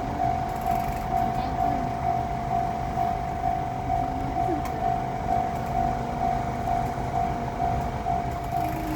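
Japanese level-crossing alarm ringing its steady electronic 'kan-kan' about twice a second, the warning that a train is approaching or passing. Under it is a low rumble, plausibly the diesel engine and wheels of a JR Shikoku 1500-series railcar.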